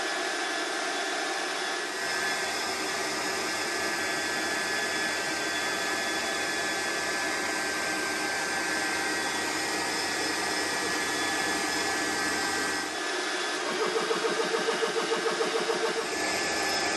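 Smaco portable oilless high-pressure air compressor running while filling a PCP airgun: a steady motor and cooling-fan hum with thin whine tones. Near the end it changes to a rhythmic pulsing of about four to five beats a second.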